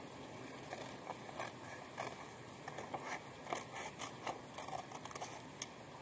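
Scissors cutting paper: a run of irregular short snips.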